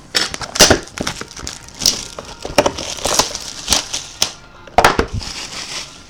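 Trading cards and their plastic sleeves being handled and sorted on a table: a string of irregular clicks and taps with scraping, sliding rustles in between.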